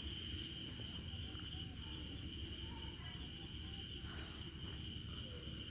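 Faint, heavily turned-down singing by a group of women at a wedding, over a steady high-pitched chirring of crickets.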